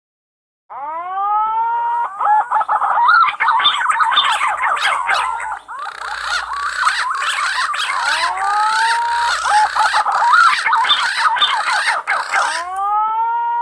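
Punai (green pigeons) calling: a flock's chorus of wavering, fluty whistled notes, with longer rising whistles standing out about a second in, around eight seconds in, and near the end.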